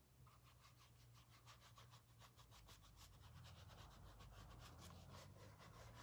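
Faint, quick strokes of a paintbrush dabbing and brushing paint onto a canvas shoe, about six or seven light rasps a second.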